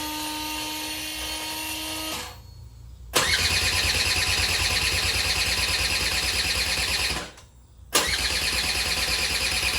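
A Buddy 50 scooter's electric starter cranking the engine in three tries, a short one first and then two longer runs of fast, even pulsing, without the engine starting. The battery has enough charge to crank, but the engine will not fire.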